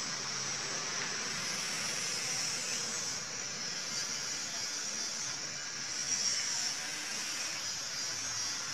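A steady hiss with a faint swell about six seconds in, most likely the recording's own background noise. No separate sound of the drag or the exhale stands out above it.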